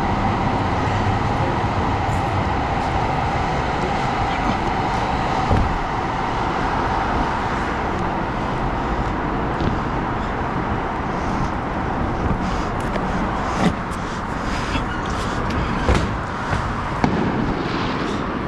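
Steady city traffic noise, with a few sharp knocks scattered through it.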